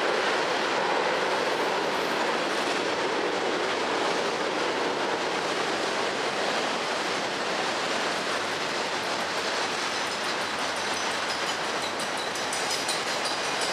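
Florida East Coast Railway freight cars, empty intermodal well cars and then tank cars, rolling past: a steady noise of steel wheels running on the rails. Over the last few seconds a light, rapid clicking comes in on top.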